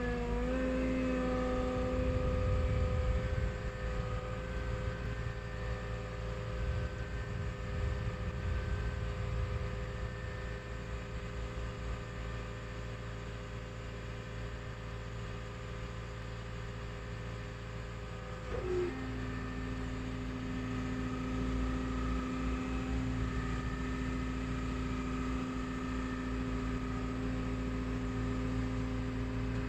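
Walking excavator's engine running under digging load: a steady low drone with a hydraulic whine made of several steady tones. Part of the whine drops out early on and comes back with a short pitch glide about two-thirds of the way through, as the hydraulic load changes.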